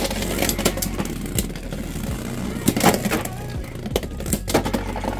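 Two Beyblade X tops, Driger Slash and Night Shield, spinning in a clear plastic stadium and clacking against each other and the stadium wall in a string of sharp hits. The loudest hit comes just before three seconds in. Background music plays under them.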